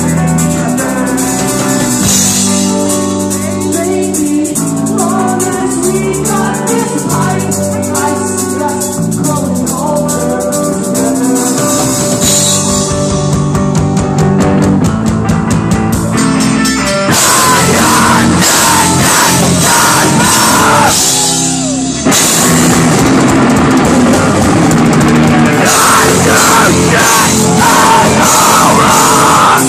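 Live rock band playing on electric guitar, bass and drum kit. The first half is held, ringing guitar chords; a bit over halfway the full band comes in louder and denser with driving drums and cymbals, dropping out for a moment a few seconds later before carrying on.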